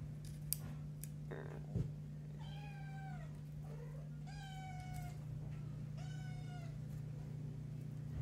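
Kitten meowing three times, high thin calls that each fall in pitch at the end, over a steady low hum. Two sharp knocks come in the first two seconds, the loudest moments.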